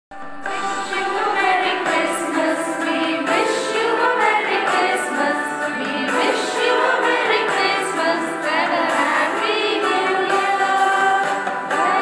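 A group of women singing a Christmas carol together with instrumental backing. The singing starts abruptly just after silence.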